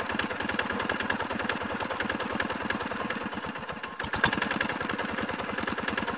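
Horizontal single-cylinder diesel engine of a two-wheel hand tractor running steadily with rapid, even firing beats. It runs with its air filter not yet fitted, having just been restarted after repair. A single sharp knock comes about four seconds in.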